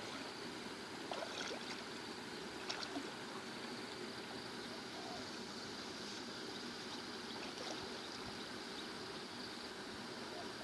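Water splashing and trickling, with a few small splashes in the first three seconds over a steady hiss.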